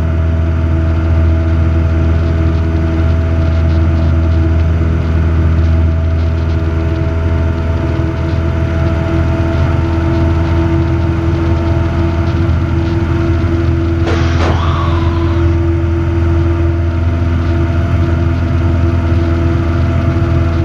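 Robin DR400 light aircraft's piston engine and propeller droning steadily, heard from inside the cockpit in flight.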